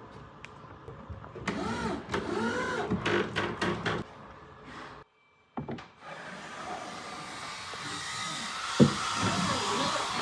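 A power tool's small electric motor whining, rising and falling in pitch in short runs, with a brief cut to silence about five seconds in.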